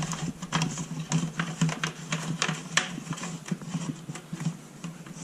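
Irregular light clicks and knocks of a nozzle and fittings being handled on a disinfectant sprayer, a few a second, over a steady low hum.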